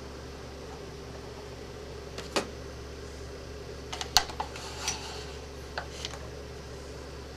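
Scattered metallic clicks and clinks of 1911 pistol parts being handled and set down during disassembly, the loudest cluster about four seconds in. A steady low hum runs underneath.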